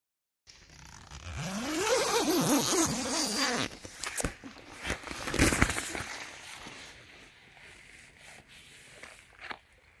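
Tent door zipper being pulled open from inside: a long rasping zip whose pitch rises and falls as it runs. It is followed by a few sharp clicks and knocks and fabric rustling as the door is pushed open.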